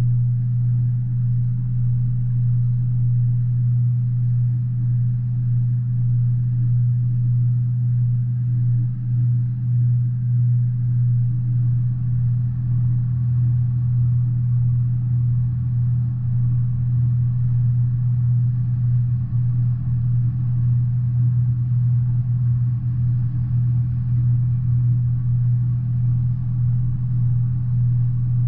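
Steady low rumble of an intermodal container freight train's cars rolling past, heard through window glass that leaves mostly the low end.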